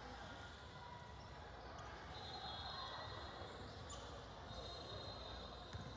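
Basketball game ambience in a gym: a ball bouncing on the court over a low, steady background of the hall, with two faint high-pitched tones about a second long each, one a couple of seconds in and one near the end.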